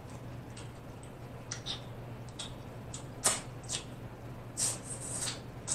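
Close-miked mouth sounds of someone eating corn on the cob: irregular wet chewing clicks and lip smacks, the loudest a little past three seconds in and a quick run of them near five seconds. A steady low hum sits underneath.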